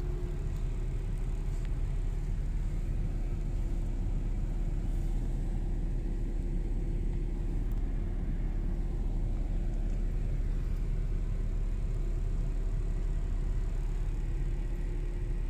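A car on the move, heard from inside the cabin: a steady low rumble of engine and road, with a faint steady hum.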